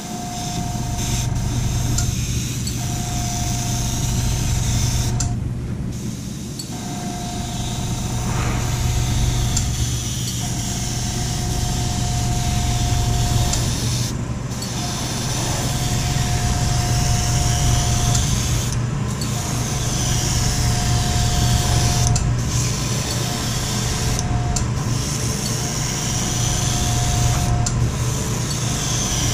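Airbrush spraying paint: a steady hiss of air and paint that cuts out briefly several times as the trigger is let off, over a continuous low hum and a thin whistling tone that comes and goes.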